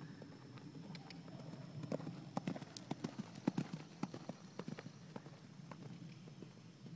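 Horse cantering on grass under a rider, its hoofbeats louder and clearer from about two seconds in, as it passes close, then fading as it moves away.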